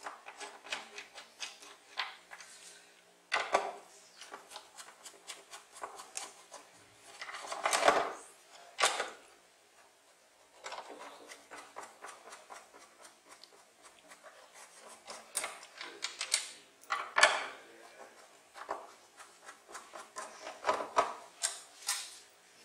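Screwdriver turning out the screws of a flat-screen TV's stand mount on its plastic back cover: a string of small clicks, with a few louder knocks and scrapes.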